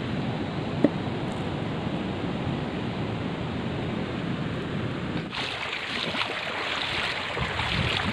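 A steady low rushing noise of wind on the microphone and a nearby stream, with one short knock about a second in. About five seconds in it changes to the brighter rush and splashing of feet wading through a shallow, rocky stream.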